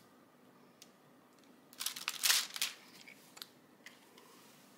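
Brief rustling and crinkling of the plastic cover film on a diamond painting canvas about two seconds in, as hands move on and off it, with a few faint clicks; otherwise near quiet.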